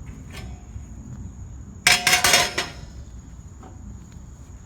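Metal shed parts clattering and clinking together in one brief rattle of several quick strikes, about two seconds in.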